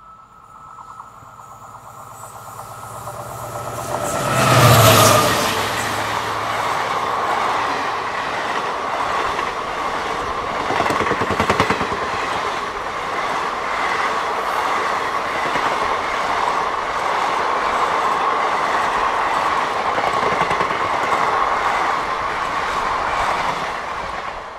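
A passenger train passing at speed: it builds up over the first few seconds, the locomotive goes by about five seconds in with a drop in pitch, then the coaches roll past for some twenty seconds with wheels clattering over the rail joints, fading away near the end.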